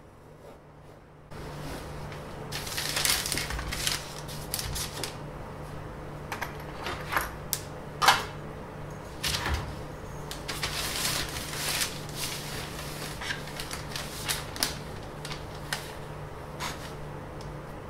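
Hand drafting on paper on a desk: irregular scratchy strokes of a pencil and compass, with clicks and knocks as the tools and a steel ruler are handled and set down, one louder knock about eight seconds in. A steady low hum sits underneath.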